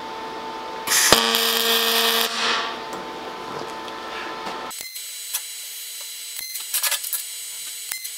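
Pulse MIG welder arc tacking steel: a loud buzz with a steady hum lasting about a second and a half, starting about a second in. After an abrupt change near the middle, a steady hum carries short crackling bursts of arc.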